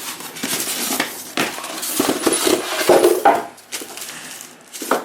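Unboxing handling of a cordless stick vacuum cleaner's packaging and parts: irregular rustling with clicks, knocks and clinks of hard plastic pieces being lifted out of the box.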